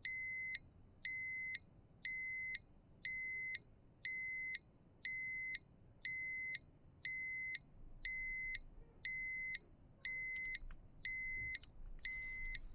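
Dosimeter alarm: a steady high-pitched tone under a lower electronic beep that repeats about once a second.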